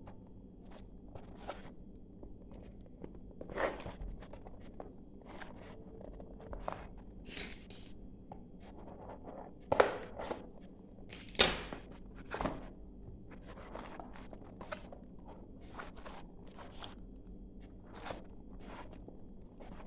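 Irregular clicks and knocks of objects being handled in a small room, with two louder knocks about ten and eleven and a half seconds in.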